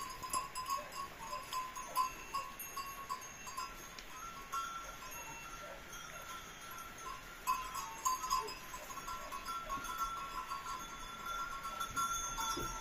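Goat kids moving about in straw and hay, with scattered rustles and light knocks, over steady chime-like ringing tones.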